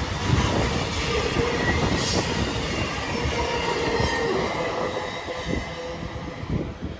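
CSX intermodal freight train's cars rolling past, with a rumble of steel wheels on rail and a steady squealing whine from the wheels. It gets quieter near the end as the last car goes by.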